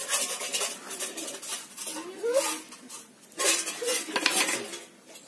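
A knife cutting and scraping through raw jackfruit on a woven bamboo tray, in two spells of rough scraping, the second starting about three and a half seconds in.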